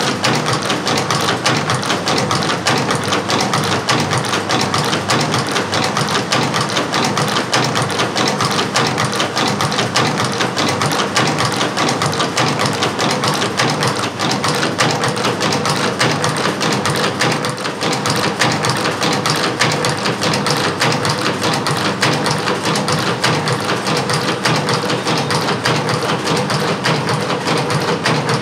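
Automatic wire chain-making machine running steadily, a rapid, even mechanical clatter from its forming head as it works wire into chain.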